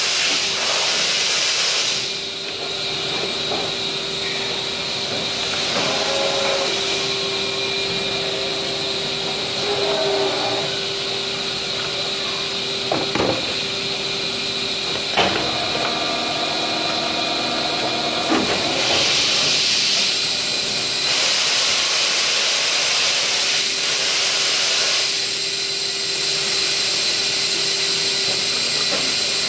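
Steady machine hiss with a constant hum underneath. A few sharp knocks about halfway through, likely plastic parts being handled.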